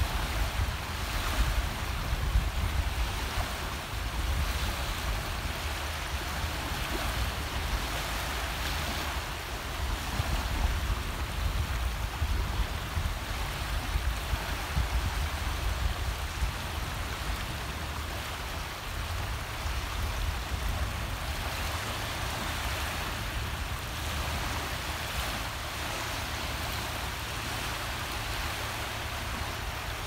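Small sea waves lapping and washing up a shallow pebbly sand beach in a steady hiss, with a low rumble of wind on the microphone.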